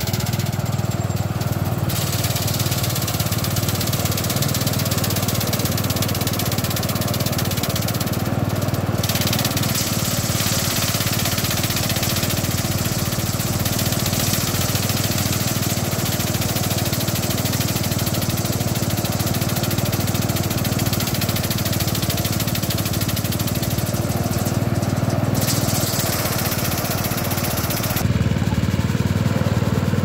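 Small rice thresher running steadily: a continuous motor hum under a dense hiss as bundles of rice stalks are fed by hand into its threshing drum. The hiss thins out briefly three times between bundles.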